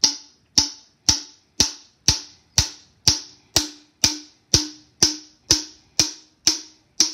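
Hammer tapping a swage tool down into a Remington 870 shotgun's steel magazine tube, about fifteen even taps at roughly two a second, each with a short metallic ring. The swage tool is being driven in to push out the tube's spring-retaining dimples.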